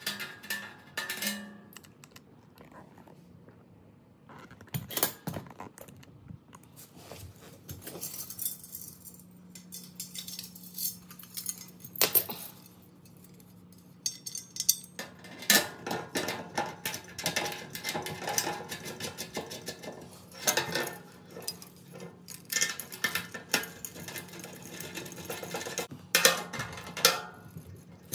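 Metal clinking and rattling of bolts, spit brackets and a nut driver against a sheet-metal grill body as the brackets are bolted on, sparse at first and busier in the second half. Guitar music ends in the first couple of seconds.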